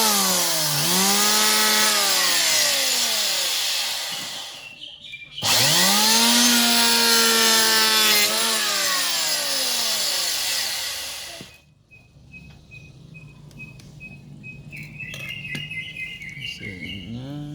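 Electric hand planer with freshly fitted TCT blades shaving a wooden board in two long passes, its motor pitch dipping as the blades bite and recovering between passes; the cutting stops abruptly about two-thirds through, leaving a quieter stretch with a few clicks, and the motor starts up again near the end.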